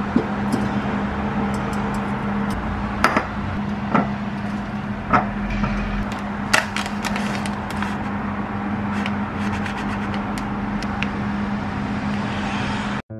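Cherry tomatoes handled in a stainless-steel colander and a glass bowl: a few sharp clicks and taps, spaced a second or more apart, over a steady hum and hiss.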